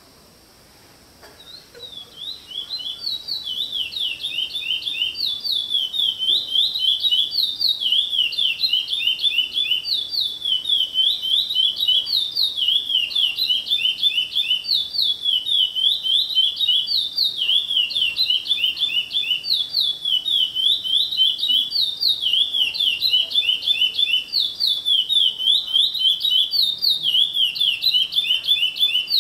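A caged songbird singing one long unbroken song of rapid, repeated whistled notes. The notes fall and rise in quick phrases that repeat over and over. The song starts faintly about a second and a half in and grows louder over the next few seconds.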